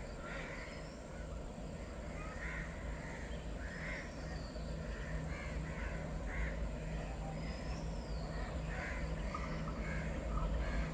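Crows cawing repeatedly, a call every second or two, over the steady low rumble of an approaching diesel locomotive that grows slowly louder.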